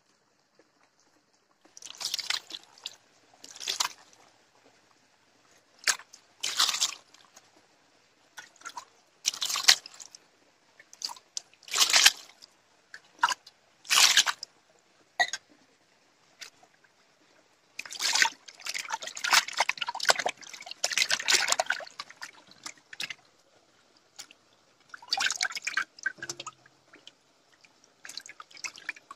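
Small fish being rinsed: water splashing in a series of short pours over them, then hands swishing them in a metal pan of water.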